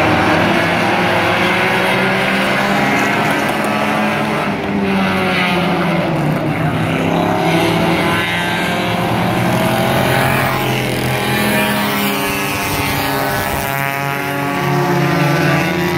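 Bomber-class stock cars racing on a short oval, several engines running at once with their pitch rising and falling as the cars pass and go round the track.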